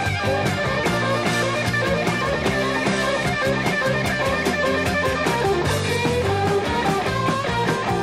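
Rock music with electric guitar and drums, instrumental with no singing.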